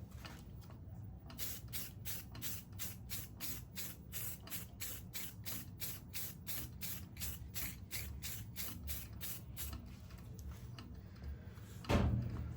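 Aerosol can of spar urethane spraying in quick short hisses, about three a second, as a coat of finish goes onto a wooden workpiece on a lathe. A knock near the end.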